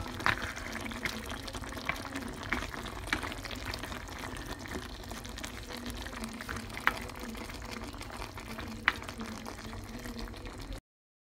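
Chicken stew in coconut milk with cassava leaves bubbling at a boil in a rice cooker pot: a steady hiss with scattered pops of bursting bubbles. It cuts off abruptly near the end.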